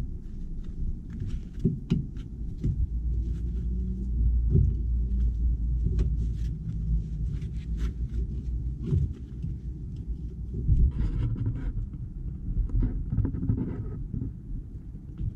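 Scattered metallic clicks and knocks of hand tools and brake parts being handled, over a steady low rumble.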